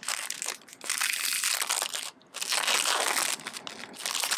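Clear plastic wrapper crinkling and crackling as a pen is worked out of it, in two stretches with a short pause about two seconds in.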